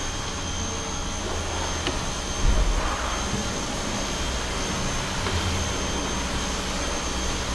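Steady rushing noise with a faint steady high whine and a low hum, broken by a dull low thump about two and a half seconds in and another about five seconds in.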